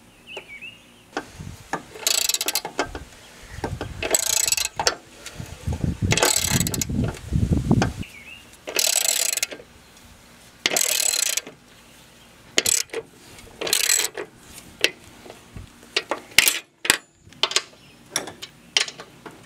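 Hand socket ratchet clicking in repeated bursts of quick strokes, running down the self-threading bolts that hold a new spindle assembly to a riding mower deck. The bursts give way to scattered single clicks in the last several seconds.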